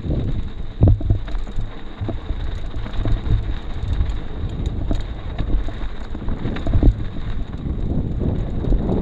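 Wind rumbling on the microphone, with scattered knocks and bumps.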